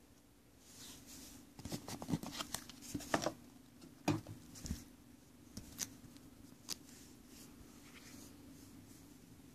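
Packaging and parts being handled during an unboxing: a cluster of rustles and sharp clicks about two to five seconds in, then a few isolated clicks, over a low steady hum.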